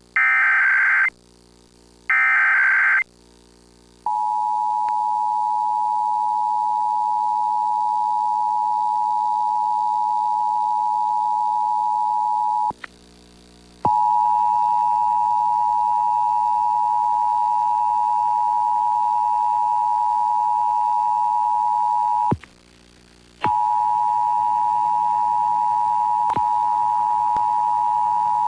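Emergency Alert System test tones from a radio broadcast: the last two digital SAME header bursts, each about a second long with a second's gap, then the steady two-tone attention signal (853 and 960 Hz together) starting about four seconds in, dropping out briefly twice.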